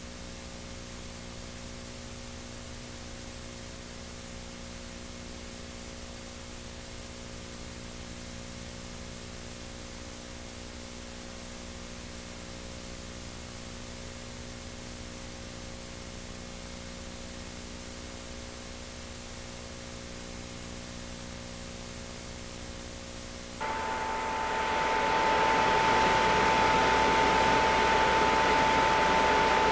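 A steady electrical hum with faint hiss from VHS tape playback. About twenty-four seconds in, it gives way to much louder tape hiss carrying a steady high tone.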